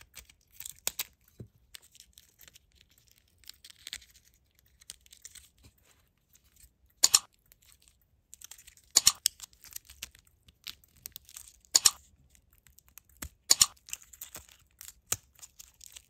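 Scissors cutting and puncturing a stiff plastic blister pack: scattered crinkling and crackling of the plastic, with four loud, sharp snips in the second half.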